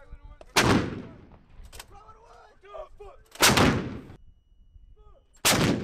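Three shots from 155 mm M777 howitzers: sharp, heavy bangs about half a second in, in the middle and near the end, each trailing off over about half a second, with faint voices between.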